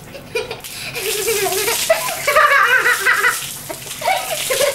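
A young girl laughing and giggling.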